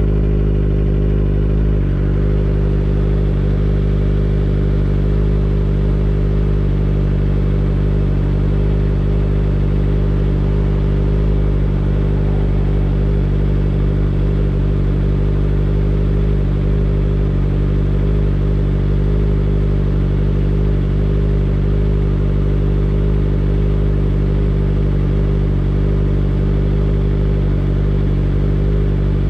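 Kawasaki Ninja ZX-25R's inline-four engine running at one steady, unchanging pitch, with no revving or gear changes.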